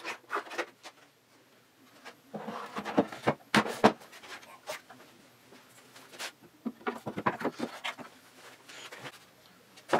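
Wooden game parts and dowels knocking and clacking as they are set down into fitted wooden slots in a cornhole board, with small wooden turn-blocks swivelled to lock them in. The knocks come at irregular intervals, with a cluster of sharp clacks a few seconds in and more near the end.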